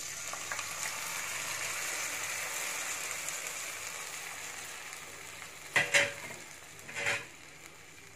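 Hot tempering oil in an aluminium kadai sizzles as a cold yogurt-and-paste mixture is poured over it. The sizzle fades slowly as the pan cools, and two short knocks come near the end.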